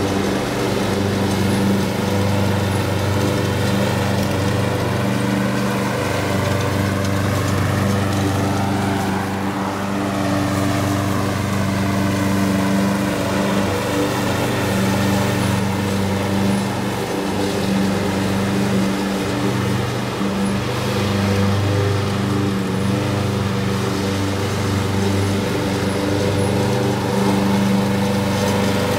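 Walk-behind gas lawn mower engine running steadily while cutting grass, its tone sweeping and shifting about a third of the way in as the mower moves across the lawn.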